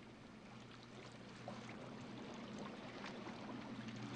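Faint rush of water splashing off a hull's bow, growing slowly louder, over a low steady hum.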